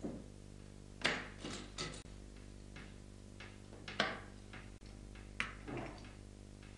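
Gold medals clinking and knocking against each other and the table as they are handled: a handful of sharp clicks, the loudest about a second in and at four seconds. A steady low electrical hum runs underneath.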